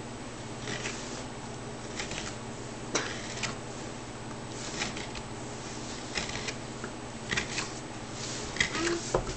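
A hand carving knife taking short scraping cuts into a wooden board, shaving off curls of wood: about a dozen irregular strokes, sometimes two in quick succession, with a louder cluster near the end. A steady low hum runs underneath.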